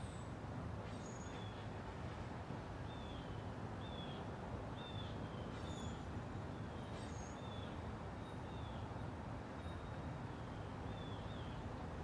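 Encon (Crompton Greaves) Princess ceiling fan running steadily, a low even hum and air noise. Small birds chirp faintly over it, short high notes repeated about once or twice a second.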